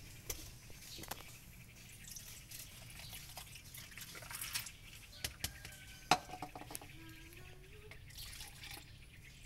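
Milk poured from a carton over ice into a plastic cup and into a plastic jug, with light clicks of handling and one sharp tap about six seconds in.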